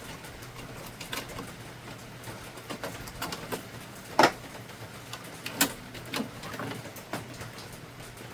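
Scattered clicks and knocks of plastic printer parts being handled while the printhead is taken out of an HP OfficeJet Pro 8600 Plus. The two loudest come about four and five and a half seconds in, over a steady low hum.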